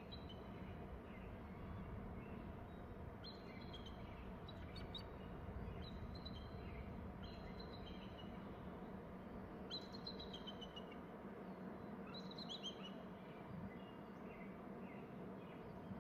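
Two nesting eagles calling back and forth: short series of high, chittering notes that step down in pitch, repeated several times from a few seconds in until near the end. Steady low background noise runs underneath.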